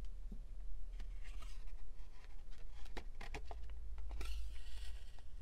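Paper strips rustling as they are handled and moved on a cutting mat, with a few light clicks and taps around the middle as a wooden button is pressed into place. A faint low hum runs under it.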